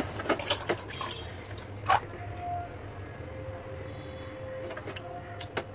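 A hand moving soaked chickpeas and potato chunks around in water inside an aluminium pressure cooker: small wet splashes and dripping, with short clicks and one sharp knock about two seconds in.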